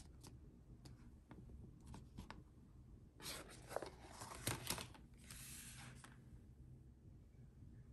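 Apple Watch paperboard packaging handled: faint light clicks, then paper rustling and sliding about three seconds in and again around five seconds in, as the band tray is moved.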